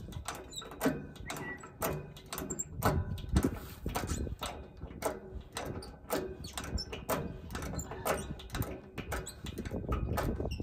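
Hand-operated hydraulic cab-tilt pump on a Kenworth Aerodyne cabover, its handle pumped up and down to raise the cab. It gives a click or knock with each stroke, about one to two strokes a second.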